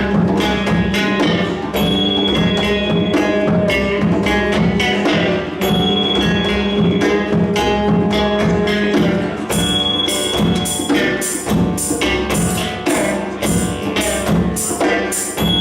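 Instrumental music led by hand drums, djembe and wavedrum, playing a steady, busy rhythm over a held low drone and sustained melodic tones.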